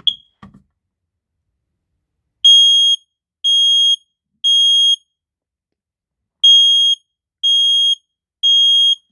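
First Alert SMI100 battery-operated smoke alarm sounding its piezo horn in the temporal-three evacuation pattern: three half-second high-pitched beeps, a pause, then three more. This is the alarm signal, sounded here on test. A short chirp comes right at the start.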